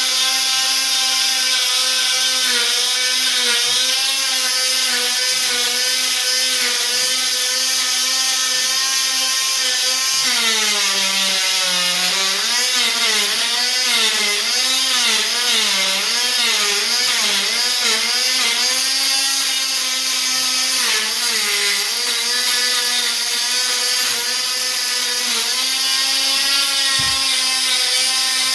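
Oscillating multi-tool scraping glued-down old vinyl flooring, its motor giving a loud, steady whine. For about ten seconds in the middle the pitch drops and wavers as the blade is pressed into the floor, then it steadies again.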